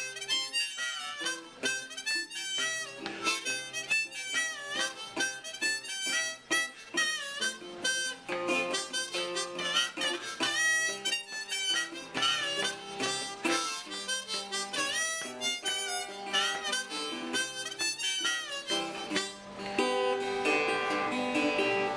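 Blues harmonica playing a solo with bending, sliding notes over a fingerpicked resonator guitar.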